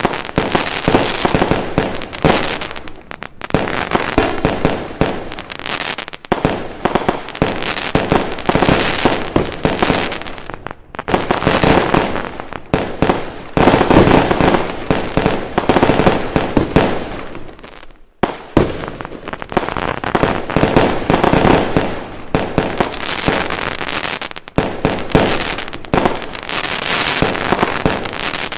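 Fireworks going off in dense barrages of rapid bangs and crackles, with short lulls every few seconds.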